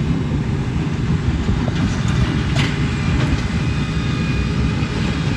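Tractors pulling hay balers through the field, engines and balers running with a steady low mechanical noise.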